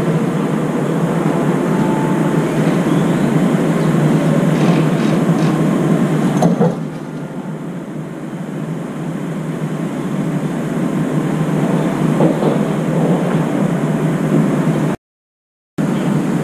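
Steady outdoor background noise, a hissing rumble with no clear tone. It drops in level about six and a half seconds in, then builds back up, and cuts out briefly near the end.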